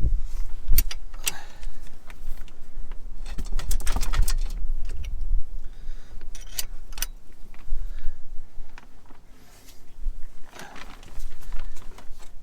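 Metal hand tools clinking and clicking against the engine, with scattered sharp knocks, as torqued engine bolts are worked loose with a wrench.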